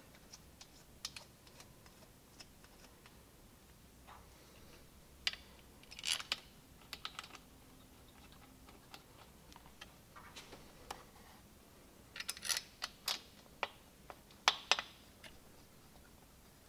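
Small metal clicks and light taps in a few short clusters as thumb screws are fitted and threaded by hand into a cam bearing installer plate on a Milwaukee-Eight engine's cam chest. The louder clicks come in bunches about six, twelve and fourteen and a half seconds in.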